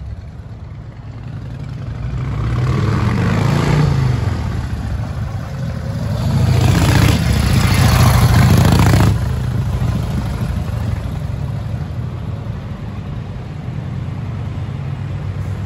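1947 Indian Chief bobber's flathead V-twin engine riding past. It grows louder as the bike approaches, eases briefly around five seconds in, is loudest as it passes about eight seconds in, then drops off suddenly and runs on fainter as it rides away.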